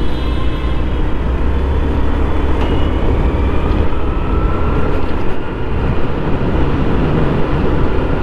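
Honda motorcycle riding steadily through city traffic, its engine running under a constant rush of wind and road noise on the camera's microphone.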